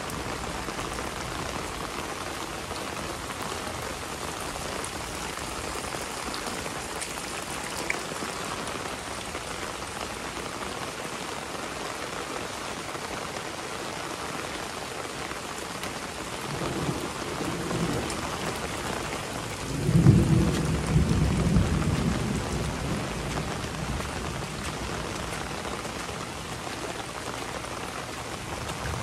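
Heavy rain falling steadily. Past the middle a roll of thunder builds, peaks in a loud clap about two-thirds of the way in, and rumbles away over a few seconds.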